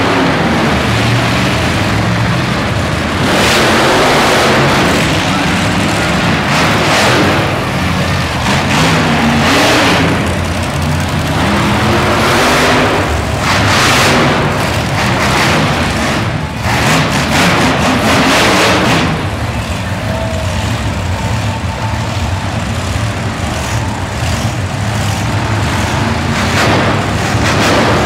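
Monster truck engines running with a low, steady drone, revved hard in loud surges every three to four seconds, then settling to a steadier run for the last several seconds.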